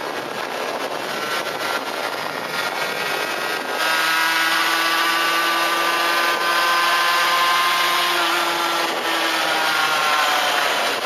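Honda NS-1's 50 cc two-stroke single-cylinder engine running at high revs while riding, with wind rushing over the microphone. About four seconds in it gets louder and holds a steady high note, which drops slightly in pitch near the end.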